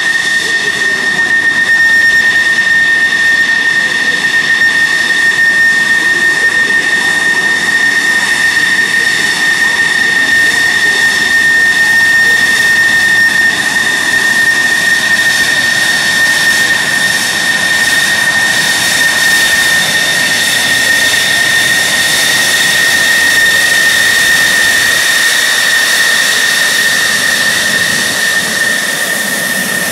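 Grumman F-14 Tomcat's twin jet engines at taxi power as the fighter taxis past: a steady, loud high-pitched whine over the rush of the exhaust.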